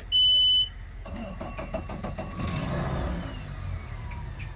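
Mercury outboard motor being started: a loud steady electronic beep for about half a second as the key is switched on, then the starter cranks for about a second before the engine catches about two and a half seconds in, revs briefly and settles to an idle.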